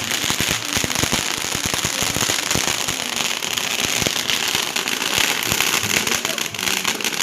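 Many firecrackers and fireworks going off at once: a dense, continuous barrage of sharp bangs and crackling, many pops a second.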